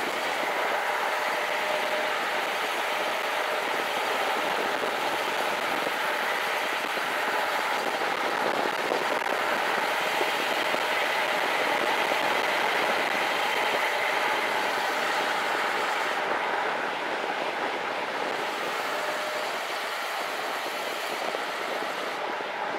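Steady rush of wind on the microphone and tyre noise of a gravel bike rolling fast down asphalt, easing slightly in the last few seconds.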